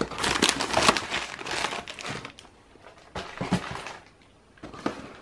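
Crinkling of a plastic snack wrapper from a packet of rice crackers being handled, dense for about the first two seconds, then a few soft clicks and rustles.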